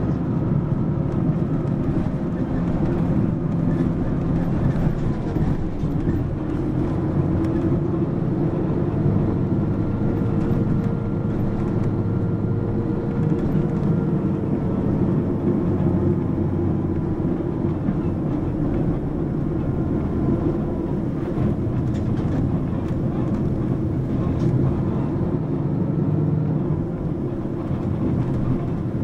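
Mitsubishi Fuso PA-MK25FJ route bus heard from inside the cabin while driving: its diesel engine runs steadily under road noise, the engine note rising and then falling gently around the middle.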